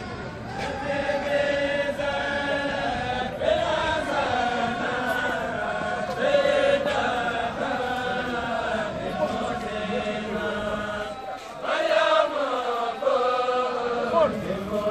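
Mouride devotees chanting a religious song together in unison, in phrases of long held notes, with a short break about eleven seconds in.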